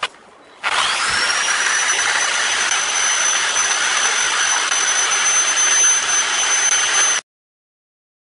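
A click, then a Bosch electric drill starts up and runs at full speed: a high motor whine rises in pitch over the first second and then holds steady over a loud whirr. It cuts off suddenly near the end.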